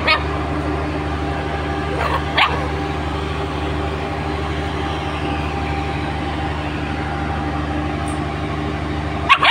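A puppy's short, high barks: one at the start, two about two seconds in and two more near the end, over a steady low machine hum.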